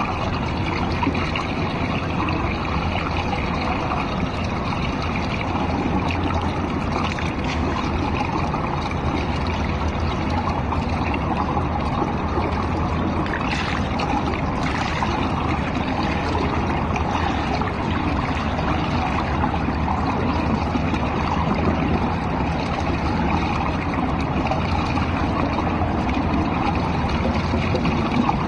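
Swimming-pool water lapping and sloshing right against a microphone at the waterline. A wave of ripples washes over about fourteen seconds in, with brief splashy sounds.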